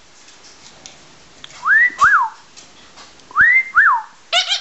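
A wolf whistle given twice, a second and a half apart: each a clean note sliding up, then a quick rising-and-falling note.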